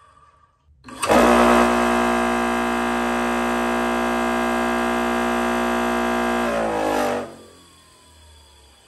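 Bench grinder's electric motor switched on about a second in. It comes up to speed almost at once and runs with a steady, many-toned hum and whine. Near the seven-second mark it is switched off and winds down, the pitch sliding lower as it coasts.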